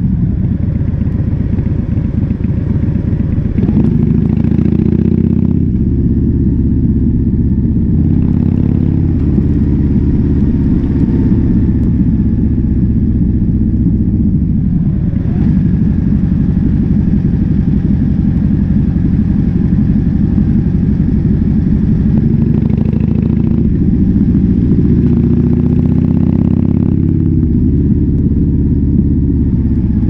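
Harley-Davidson Fat Bob's V-twin running under way through a KessTech ESM3 exhaust, its note rising and falling several times with throttle and gear changes.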